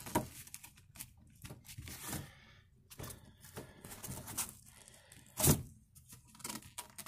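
Armrest on a Lada 2101's door card being pulled and worked loose by hand: scattered short scrapes and small knocks, with one loud knock about five and a half seconds in.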